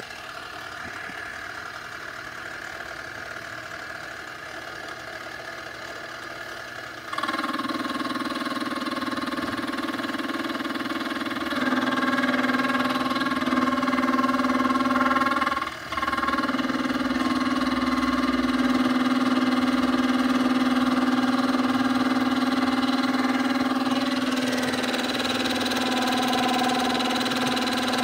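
Small benchtop milling machine running a dovetail cutter through aluminium: a steady motor hum with a whine, which steps up louder about a quarter of the way in and again a little later, with one brief dip just past halfway.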